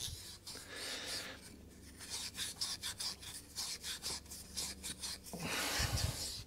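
Wire wool scrubbing the inside of a metal carburettor float bowl in quick scratchy strokes, scouring off green ethanol deposits.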